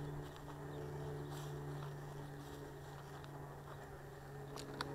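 Slow-moving freight train passing: a low, steady hum with a few sharp clicks near the end.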